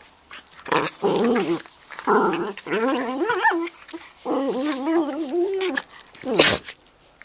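A dog vocalizing in several drawn-out, wavering whines. A short sharp sound comes about six and a half seconds in.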